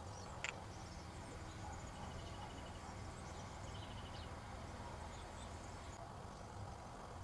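Faint outdoor ambience: steady low background noise with scattered distant chirps and a few short trills. One short sharp click sounds about half a second in.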